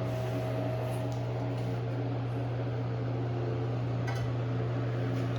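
Dog-shaped desk fan running on its low setting: a steady electric motor hum with the rush of its airflow.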